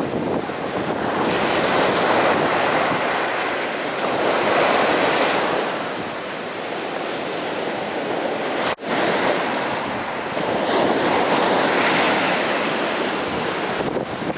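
Sea waves breaking on a beach: a steady rush of surf that swells and fades as successive waves come in, with a sudden brief dropout a little past halfway.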